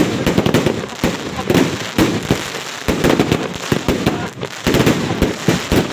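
Fireworks and firecrackers going off in rapid irregular cracks and bangs, several a second, over a continuous crackling.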